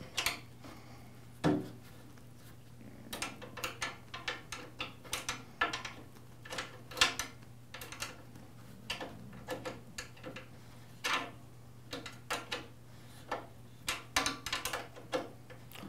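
Metal wrench clicking and clinking in short, irregular strokes as it turns a thickness planer's table adjustment screw to raise the table, with a louder knock about a second and a half in.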